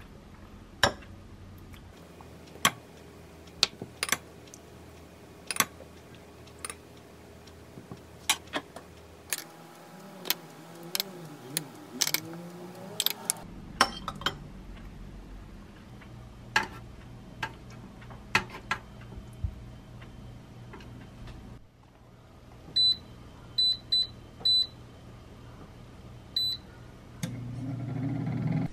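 A metal spoon clicking and scraping against a ceramic bowl and baking dish as marinade is spooned over raw chicken drumettes, with many short sharp clinks. Later, a run of short electronic beeps from a digital air fryer's touch panel as it is set, then its fan starts running near the end.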